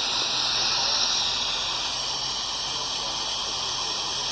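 Steady hiss of radio receiver static, with a faint low hum underneath.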